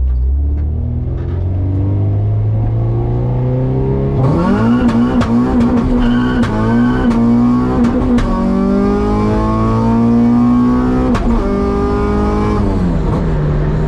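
Honda H22 four-cylinder VTEC engine (H2B swap) in a Civic, naturally aspirated and running on E85, pulling hard: it climbs gently at first, then revs sharply up about four seconds in and holds at high rpm under full throttle, dips briefly at a gear change and climbs again, then drops away near the end as the throttle is lifted. A few sharp cracks sound during the high-rpm stretch.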